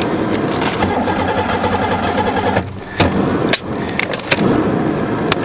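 Starter cranking the crushed Buick's 3.8 V6 without it catching. The cranking stops about two and a half seconds in, followed by a few sharp clicks.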